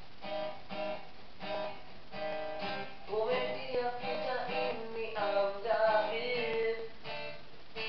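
Acoustic guitar music, chords strummed in a steady rhythm, with a melody line held over them in the middle.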